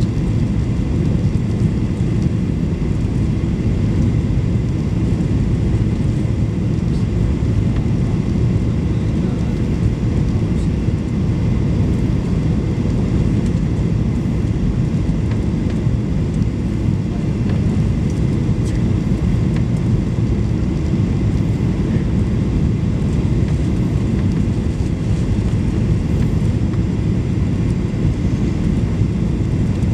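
Steady low rumble of cabin noise inside a Boeing 737-800 on final approach: engine and rushing-air noise, with no distinct events.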